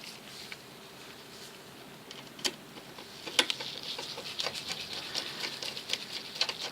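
Small metallic clicks and light scratching of a Torx driver turning screws into a folding knife's frame. A couple of sharper clicks come about two and a half and three and a half seconds in, then dense small ticking fills the second half.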